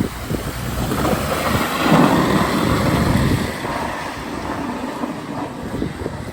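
Car driving over rough ground, with wind noise on the microphone; the noise swells for a second or so about two seconds in.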